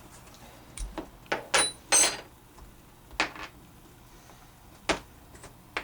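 Short clicks and knocks of hand tools (a punch, a 7/16 inch socket and a cut piece of water pipe) being handled while a .410 shotgun shell is pushed into its crimp by hand. About nine separate knocks, the loudest a close pair about two seconds in.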